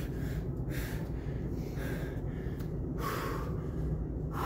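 Heavy, hard breathing of a man recovering in the middle of a set of kettlebell snatches: about five sharp, noisy breaths, gasped in and blown out, about a second apart.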